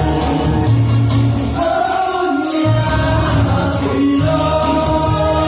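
Upbeat karaoke-style song over a PA: a backing track with a steady bass beat and a man singing into a microphone over it. The bass drops out briefly about two seconds in.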